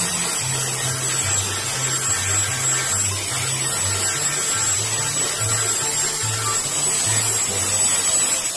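Electric angle grinder with an abrasive disc running steadily against a wooden bolo handle, sanding it down to shape, with a constant high whine. Background music with a stepping bass line plays throughout.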